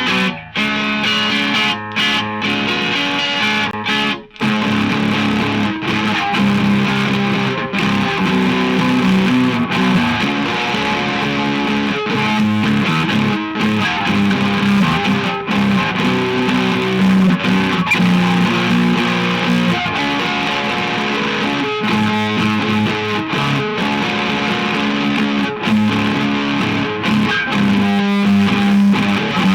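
Electric guitar being played: strummed chords and held notes, stopping briefly a few times in the first five seconds and then running on without a break.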